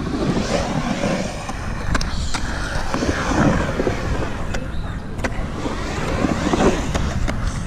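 Skateboard wheels rolling on a concrete bowl. The rumble swells and fades several times as the rider carves through the transitions, with a few sharp clicks.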